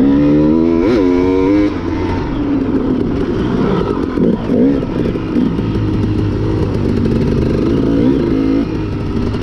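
Dirt bike engine under way on a dirt trail, its pitch rising and falling as the rider works the throttle, with a sharp rev and drop about a second in and further swells around the middle and near the end.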